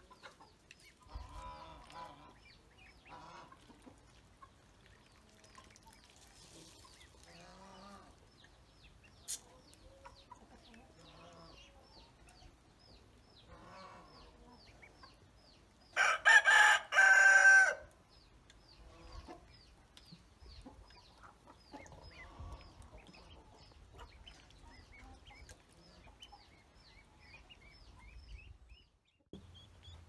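A rooster crows once, loud, about halfway through, a call of a couple of seconds in a few parts. Around it come softer scattered clucks and calls from chickens and ducklings at a feed bowl, with a thin, high peeping repeated about three times a second.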